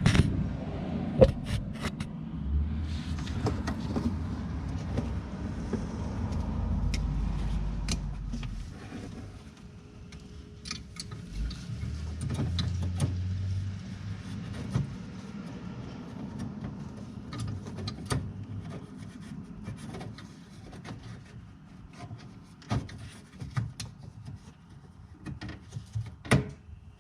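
Hands working a replacement HID bulb and its connector into a car's headlight housing: scattered plastic clicks, knocks and rubbing. A low rumble runs under the first third and returns briefly about halfway through.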